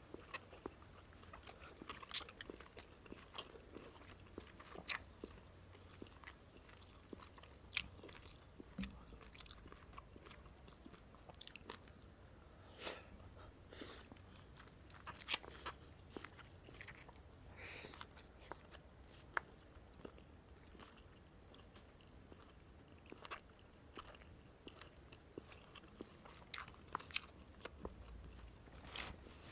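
A person eating close to the microphone: quiet, irregular chewing and biting noises with scattered sharp clicks.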